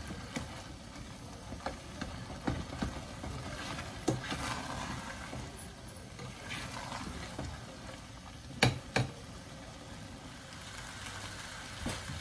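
A spatula stirring and scraping a thick chicken and lentil mixture in a stainless steel saucepan, with scattered knocks of the spatula on the pan, two sharper ones about nine seconds in, over a steady low rumble. The mixture is cooking down on full heat to dry out its water.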